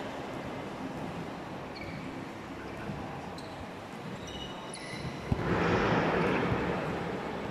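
Spectator crowd at an indoor court game, steady chatter with short high squeaks scattered through it. A sharp knock a little after five seconds in, then the crowd cheers louder for about two seconds before settling.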